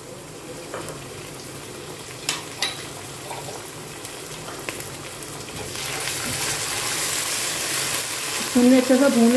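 Chopped onions frying in vanaspati ghee in a pot, with a few sharp clicks of a spoon against the pot. About six seconds in the sizzle grows much louder and stays hissing as ginger-garlic paste is stirred through the hot onions.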